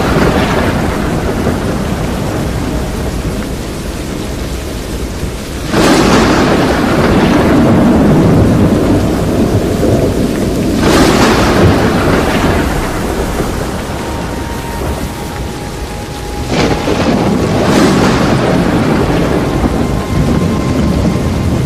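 Tornado storm: steady heavy rain and wind, broken by four loud thunder-like roars that come on suddenly and fade over a few seconds.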